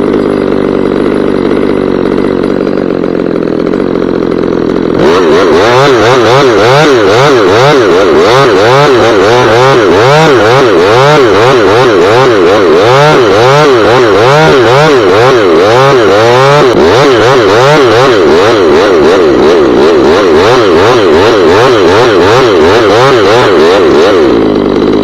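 Two-stroke chainsaw at full throttle cutting the back cut through a large ash leader. About five seconds in it gets louder and its pitch dips and recovers again and again as the chain loads in the wood, then it runs steadier before cutting off at the end.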